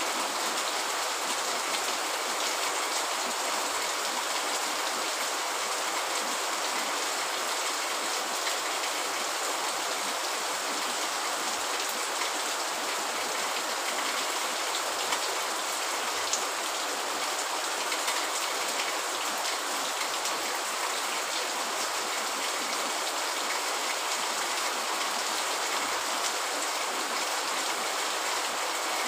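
Steady rain falling: an even hiss with a few sharper drop ticks here and there.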